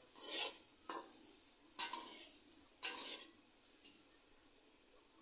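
Spatula scraping and turning soya chunks frying in oil in an aluminium kadai, about five strokes roughly a second apart over a hissing sizzle. The sizzle dies down near the end.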